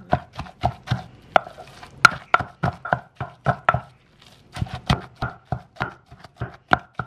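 Wooden pestle pounding in a Thai clay mortar, at about three dull knocks a second with a short pause about four seconds in. Cooked fish and chili are being pounded down to a fine paste.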